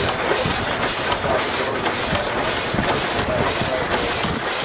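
Scale-model vertical multi-cylinder marine steam engine running steadily, its exhaust hissing in a regular beat of about two puffs a second.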